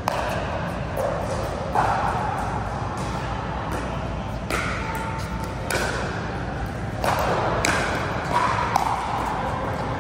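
Pickleball paddles hitting a plastic ball in a rally: a series of sharp pops roughly one to two seconds apart, echoing in a large indoor hall.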